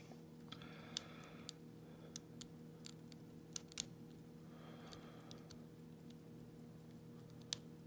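Faint, irregular clicks of a lock pick working the pins of an Iseo lock cylinder under light tension, over a steady low hum.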